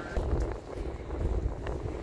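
Wind buffeting a microphone that has a wind cover over it: a low, gusty rumble.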